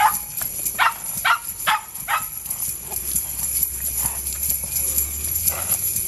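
Hoofbeats of a ridden horse on turf, about two to three a second and strongest in the first two seconds, with the bells braided into its mane jingling along with its steps.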